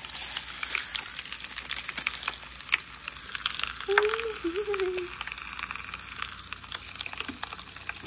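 Bath crackles crackling in a plastic tub of water: a dense, steady crackle of many small, sharp pops.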